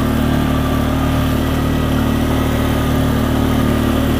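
Polaris Sportsman ATV engine running steadily under load as the quad pulls uphill through deepening snow, with a faint steady whine above the engine note.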